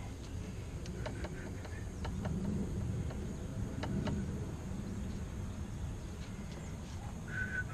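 A few faint clicks and taps of hands working a rubber fuel line off a Johnson 150 HP outboard, which is not running, over a low steady background hum.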